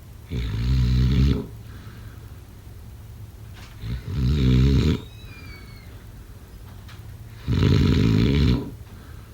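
A person snoring: three loud snores, each about a second long, coming about every three and a half seconds.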